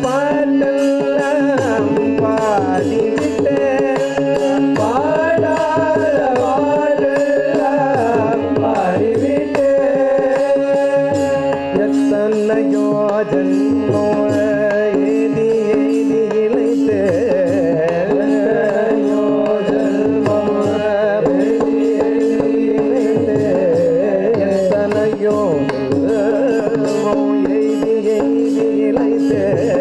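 A male voice singing a Tamil devotional bhajan in Carnatic style over a steady harmonium drone, with hand-played mridangam drum strokes keeping the rhythm.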